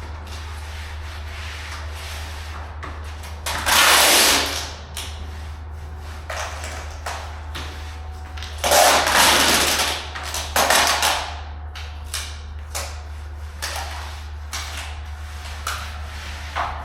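Tape being pulled off the roll in long ripping pulls, about four seconds in and again around nine to eleven seconds, to tape the seam between sheets of flooring underlayment, with light crinkles and taps of the plastic underlayment in between. A steady low hum runs underneath.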